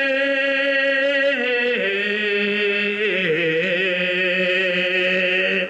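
A man's voice chanting a slow ritual song in long held notes with a slight waver, the pitch stepping down twice; the voice breaks off at the end.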